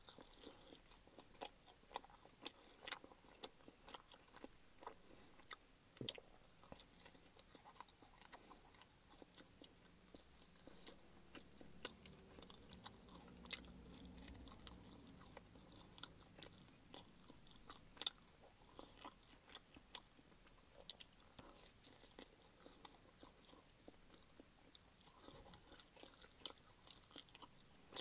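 Close-up chewing and mouth noises of a man eating a slice of pepperoni pizza: irregular wet smacks and clicks as he bites and chews the bread crust.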